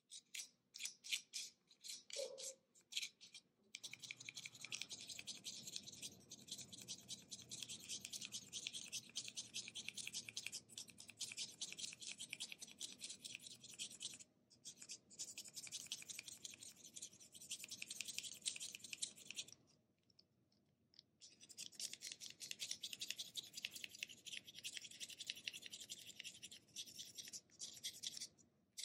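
Snap-off utility knife blade scraping the point of a Faber-Castell 9000 HB graphite pencil in fast, short strokes, sharpening it by hand. A few separate strokes come first, then the scraping goes almost continuously, with a brief stop about two-thirds of the way through.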